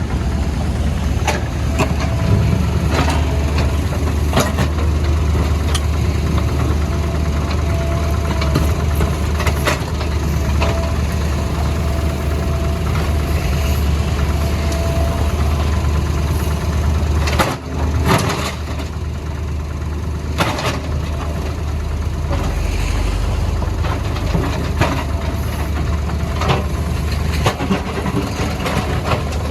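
Diesel engine of a CAT 462F backhoe loader running steadily under load, with scattered knocks and scrapes as it breaks up the road surface. A faint steady whine sits in the background for a while before midway.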